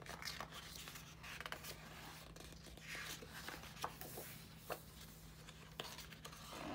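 Pages of a large glossy photobook being turned by hand: soft paper swishes and small ticks, over a faint steady hum.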